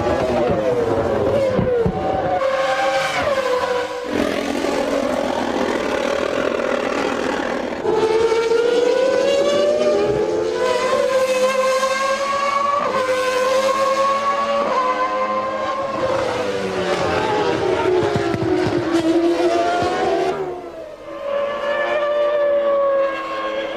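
Formula One race cars of 1996 running at high revs, their engine note climbing and dropping in steps through gear changes and gliding down as cars pass. The sound changes abruptly several times from one car or shot to the next.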